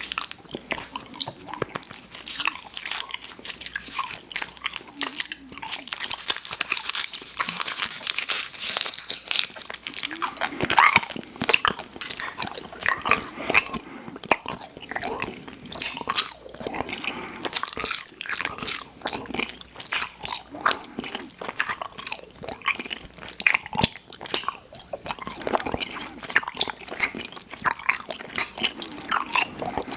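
Close-miked mouth sounds of someone biting and chewing sweet treats, a dense run of quick wet smacks and clicks.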